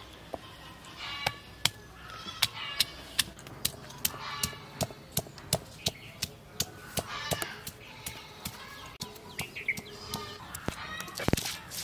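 Stone pounder knocking garlic and ginger against a flat stone grinding slab, about two to three sharp knocks a second. Fowl call now and then between the knocks.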